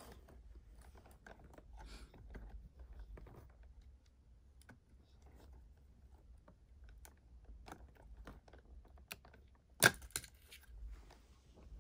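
Faint rustling and small plastic clicks of wires and connectors being handled in an electric scooter's wiring bay, with one sharp, loud click a little under ten seconds in.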